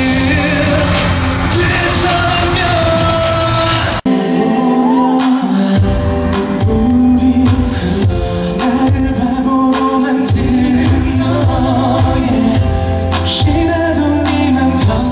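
A male singer singing live into a handheld microphone over backing music. The sound cuts out for an instant about four seconds in, then resumes.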